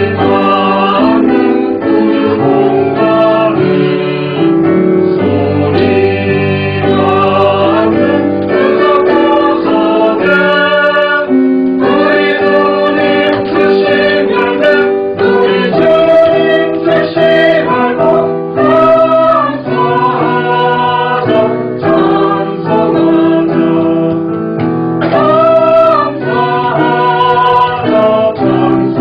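Church choir singing a hymn with women's voices prominent and piano accompaniment.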